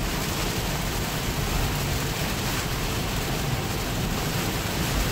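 Heavy rain on a Tesla Model 3 and its tyres hissing through water on the road, a steady, even rush heard from inside the cabin.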